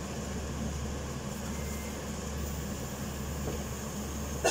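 A steady low hum with a faint hiss.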